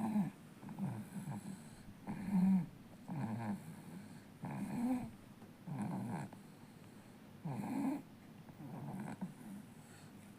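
Four-month-old baby snoring in its sleep: a regular run of short snores, about one every second and a half.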